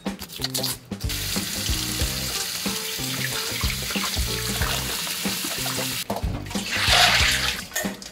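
Kitchen tap running into a stainless steel sink as bell peppers and green peppers are rinsed by hand over a metal colander, a steady splashing of water. The flow stops about six seconds in, followed by a brief louder splash as the wet colander is handled near the end.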